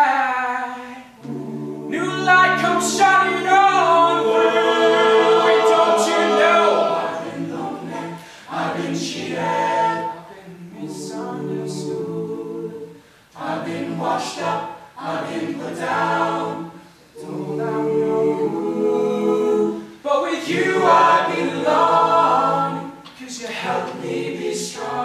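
Mixed-voice a cappella group singing a gospel-style ballad: the lower voices hold sung chords under a lead voice with vibrato, in phrases separated by short breaks.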